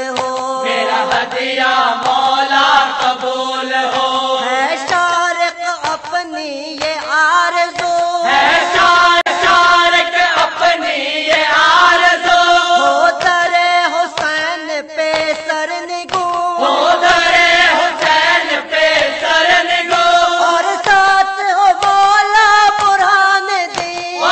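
A Dawoodi Bohra marsiya, a Muharram elegy for Imam Husain, chanted by a single voice in a mournful melody with long held, wavering notes.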